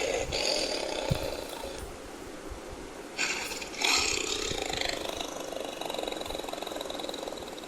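Tiger growling throughout, breaking into two rough, rasping roars: one at the start and one about three seconds in.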